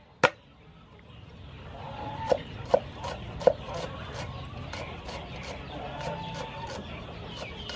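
Cleaver chopping green onions on a thick round wooden chopping block: quick, even knocks, about three to four a second, starting about two seconds in after a single sharp knock. Chickens cluck throughout, loudest in three clucks during the first second of chopping.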